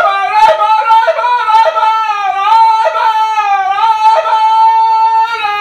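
A traditional Panamanian grito, or saloma: one high falsetto voice holding a long, wavering, yodel-like cry, its pitch quivering and dipping with brief catches, stopping just before the end.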